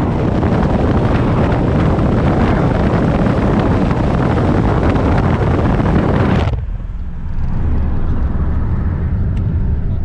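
Wind and tyre noise rushing in through an open car window at highway speed. About six and a half seconds in the hiss cuts off sharply, leaving the car's steady low rumble as heard inside the cabin.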